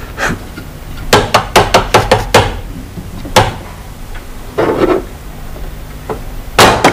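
A hard-boiled egg knocked repeatedly against a hard surface to crack its shell: a quick run of about seven sharp taps, then a few single knocks.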